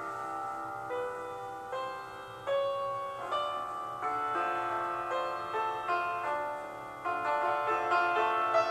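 Slow, gentle piano music, a new note or chord entering about once or twice a second.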